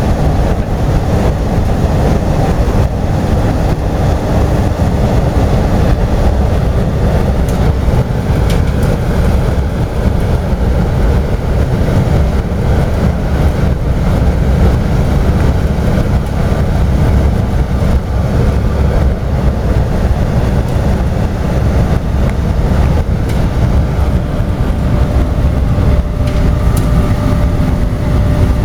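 0.5 t/h (300,000 kcal/h) biomass sawdust burner test-firing, its blower and open flame jet making a steady low rushing noise. A faint steady tone joins near the end.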